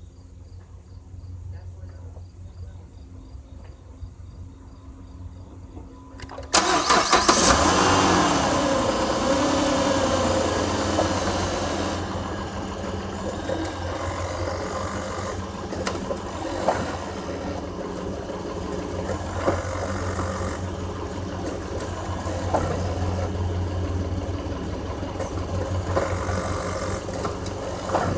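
Car engine cranking and firing about six and a half seconds in, then running steadily with a few short sharp knocks. The engine sits on a bad motor mount that lets it lift and shift. Crickets chirp faintly before the start.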